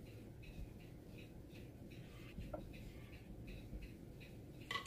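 Faint soft scraping and sliding as a spatula scrapes thick whipped-cream mixture out of a glass bowl into a plastic container, with a small tap about halfway and a sharper tap near the end.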